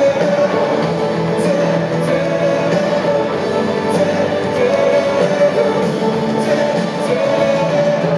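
Live pop-rock band playing in an arena, heard from the audience: electric guitars and drums with cymbal hits, with singing over it.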